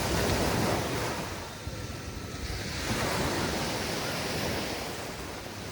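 Mediterranean surf washing onto a sand beach: a wave breaks and surges right at the start, then another swells about three seconds in.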